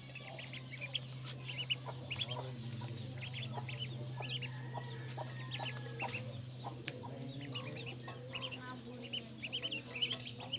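Ducklings peeping in quick clusters of short high calls, with light taps scattered through, over a steady low hum.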